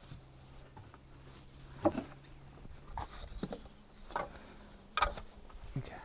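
A handful of short wooden knocks and bumps as the hive in the wooden bee house is handled, the sharpest about two seconds in and again about five seconds in. Under them a low steady buzz runs through the first half and then stops, with a faint high insect chirring behind.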